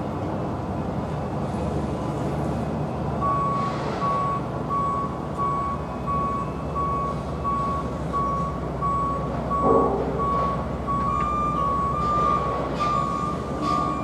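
A construction vehicle's reversing alarm beeps at a steady pace, a bit over one beep a second, over the low rumble of site machinery. From about eleven seconds in, a second, slightly higher-pitched beeper joins it, and a single knock comes just before that.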